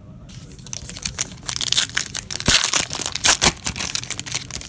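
Foil trading-card pack wrapper being crinkled and torn open by hand: a dense run of sharp crackles, loudest in the middle.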